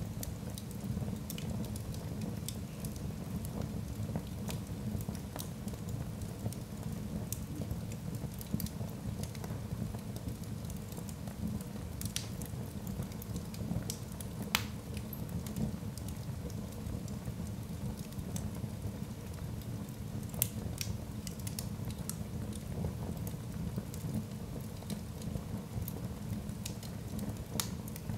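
Log fire burning in an open hearth: a steady low rush of flames with scattered sharp crackles and pops from the burning wood, the loudest pops about fifteen and twenty seconds in.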